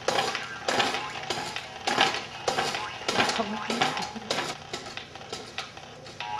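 Plastic clattering and clicking from a Jumperoo baby jumper as the child bounces and handles the tray toys: a rapid, irregular run of sharp rattles and knocks.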